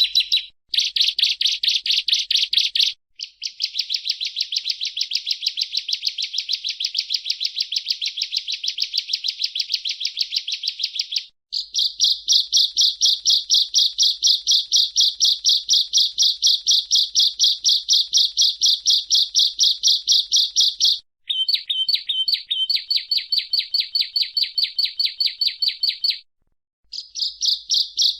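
Bar-winged prinia (ciblek) singing long runs of high, rapidly repeated chattering notes, broken by a few brief pauses. About three-quarters of the way through, the notes switch to a different, thinner pattern.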